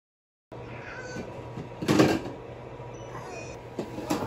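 Silent for the first half second, then room background with a television faintly playing. A loud rustling knock about two seconds in, and a shorter one near the end.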